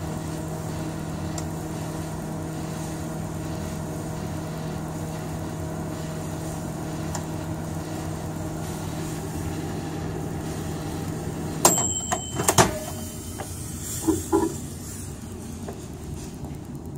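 A Beko dial-timer microwave oven runs with a steady hum while heating a bottle of agarose solution. About twelve seconds in, the timer runs out and it stops with a ding and a clunk, followed by a few softer knocks.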